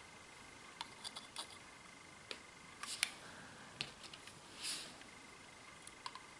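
Faint, scattered small clicks and light taps of metal tweezers and a soldering iron working thin wires onto a small circuit board, with a short soft hiss a little past the middle.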